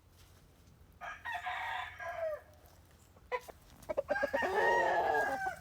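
Roosters crowing: a first crow about a second in that ends on a falling note, then a few short broken notes that run into a longer, louder crow near the end.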